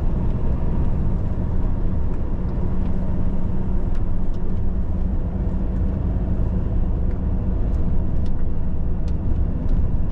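Tatra Phoenix truck's diesel engine running while the truck is driven, a steady low drone.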